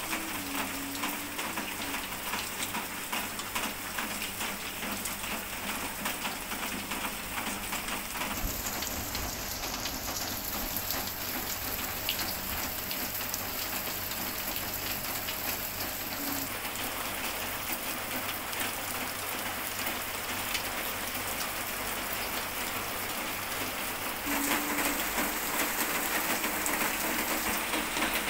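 Steady rain falling, an even patter of drops on a surface; it gets somewhat louder near the end.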